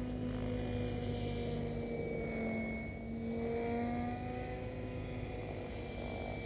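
Align T-Rex 800 electric RC helicopter in flight: the whine of its motor and rotor holds steady with its pitch gently rising and falling as it moves about.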